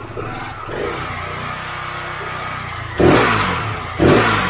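KTM 690 single-cylinder engine running at idle just after a top-end rebuild, then revved twice with quick throttle blips about three and four seconds in, the revs rising sharply and falling back each time.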